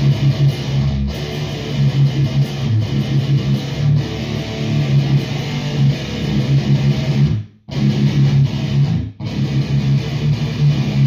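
High-gain distorted electric guitar played through a REVV G4 preamp pedal, riffing on tight, chugging low notes with heavy low end, with two short stops about seven and a half and nine seconds in.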